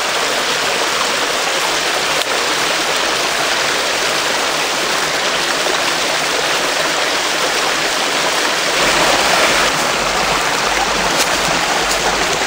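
A small spring-fed woodland stream rushing and splashing over rocks, a steady full wash of water.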